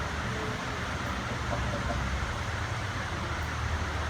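Steady low hum with an even hiss: room background noise during a pause in speech.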